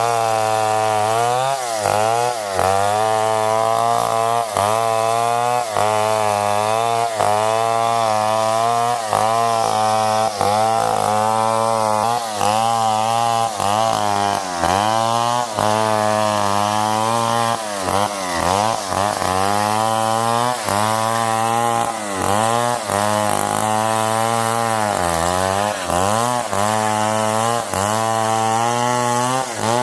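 Stihl 070 two-stroke chainsaw running hard and cutting wood. Its engine pitch repeatedly sags and recovers every second or two as the chain bites and the engine takes the load.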